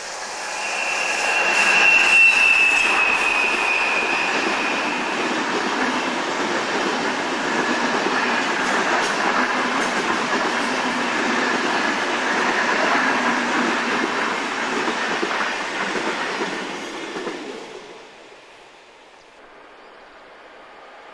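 SBB Re 460 electric locomotive and its EW IV coaches passing close by, climbing the grade, with a dense rumble of wheels on rail and a rhythmic wheel clatter. A high thin whine rides over it for a few seconds as the locomotive goes by. It is loudest about two seconds in and dies away near the end as the last coach passes.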